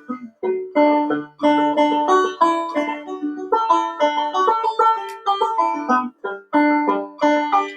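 Clawhammer banjo playing a traditional tune: a quick, rhythmic stream of plucked notes in phrases with brief gaps between them.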